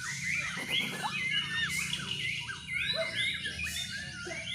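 Several caged white-rumped shamas (murai batu) singing at once, a dense run of short, overlapping rising and falling notes.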